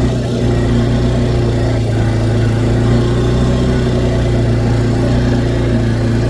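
A vehicle engine running steadily at an even speed, close and loud.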